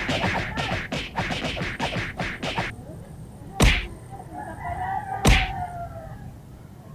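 A quick run of short sharp slaps, then two loud, sharp whacks about a second and a half apart.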